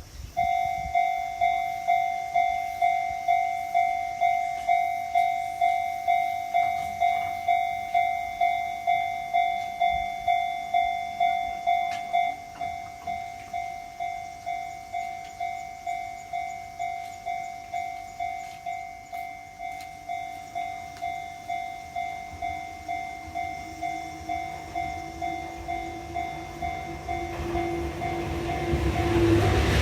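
Japanese level-crossing alarm starting up: a Sotetsu-type electronic warning tone pulsing a little over twice a second. About twelve seconds in it turns noticeably quieter, as this crossing's alarm is set to drop in volume once the barriers are down. In the last few seconds an approaching Enoden electric train is heard as a rising motor whine and a growing rumble.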